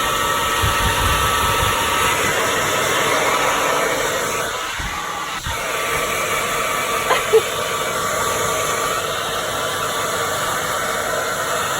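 Hairdryer blowing steadily, with a short loud sound about seven seconds in.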